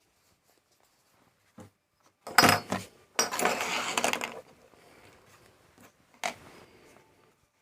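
Small metal parts of a dismantled gas lighter being handled and rubbed clean: a light knock, then two stretches of scraping and rubbing about two and three seconds in, and a sharp click near the end.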